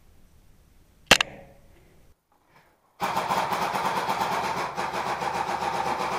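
A single sharp crack about a second in, an airsoft rifle shot. After a short dead gap, a loud, steady, engine-like rattle starts about three seconds in and runs on past the end.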